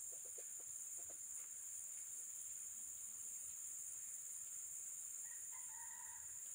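Steady, high-pitched chorus of insects, crickets or cicadas, with a quick run of soft low clucks from foraging chickens in the first second and a brief pitched call near the end.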